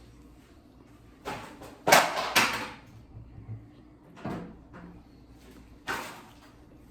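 Close-miked eating noises: several short bursts of biting, chewing and handling food, the loudest cluster about two seconds in.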